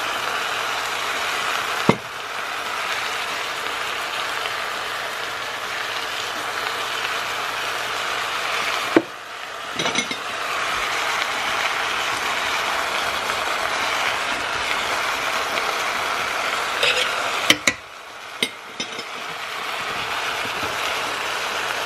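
Chuck roast with onions and garlic sizzling as it sears in the pot of a Cuisinart 3-in-1 multicooker. A few sharp clicks or knocks come through it, and the sizzle dips briefly about nine seconds in and again near the end.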